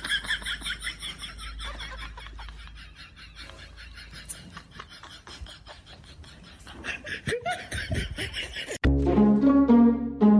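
Laughter over room noise with scattered clicks and knocks, then orchestral background music with plucked strings cutting in suddenly near the end.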